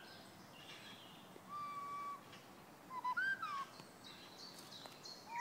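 Birds calling: a few separate clear whistled notes spaced a second or so apart, one held briefly, one rising and falling.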